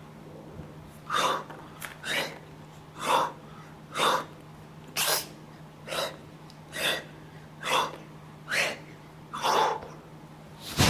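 A person breathing out sharply through the mouth in a steady rhythm, about once a second, ten times, over a faint steady hum that stops near the end.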